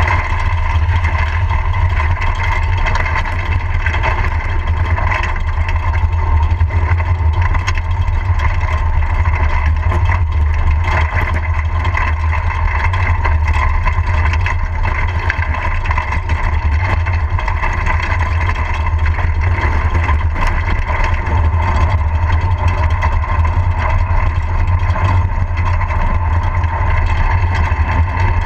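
Unpowered soapbox cart coasting downhill on an asphalt road, heard from on board: a steady rush of wind buffeting the microphone and rolling rumble from the wheels on the road, with a constant whine in it.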